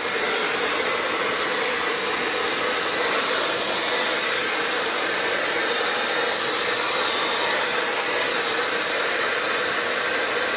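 Fanttik EROS A10 Apex hair dryer blowing on its high heat, high power setting: a steady rush of air with a faint hum underneath and a bright hiss on top.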